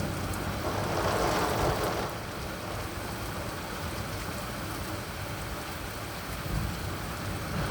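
Steady rain falling in a thunderstorm, swelling a little for about a second near the start.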